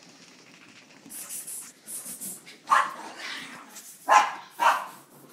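Dog making short, sharp sounds: a couple of soft hissy huffs, then three loud short bursts over the second half.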